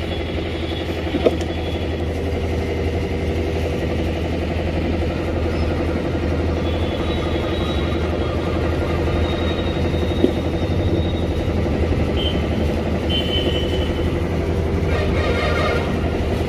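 An engine idling steadily, with two sharp clicks, one about a second in and one about ten seconds in.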